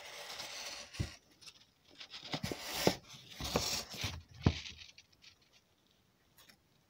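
Hand-held adjustable rawhide lace cutter's steel blade slicing a thick lace, about 3 mm, from the edge of a hide. It makes a hiss, then a few short scraping, tearing strokes with sharp clicks, stopping about five seconds in.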